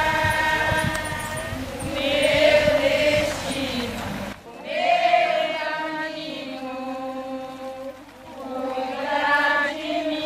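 Voices singing a slow devotional folia hymn, with low thumps underneath during the first four seconds. About four seconds in the sound changes abruptly, and the singing carries on without the thumps.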